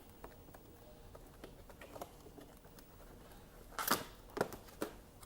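Packaging being handled and opened: faint rustling, then a few sharp clicks and scrapes about four seconds in.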